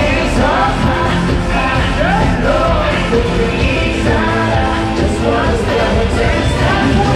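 Live K-pop concert music heard from the arena stands: male vocals singing and rapping over loud, amplified pop-rock backing, with the crowd yelling along.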